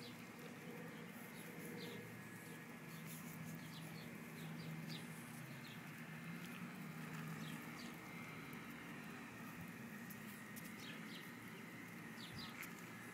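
Quiet outdoor background: a steady low hum under a faint hiss, with scattered short, high ticks or chirps.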